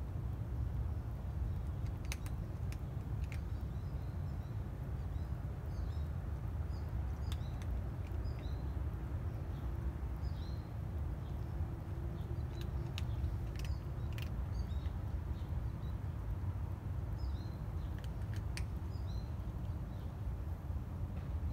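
Small birds chirping in short, high notes scattered throughout, over a steady low rumble, with a few sharp faint clicks.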